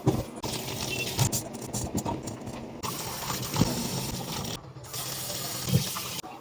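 Handling noise from food items and containers being moved about, with several light knocks as things are set down.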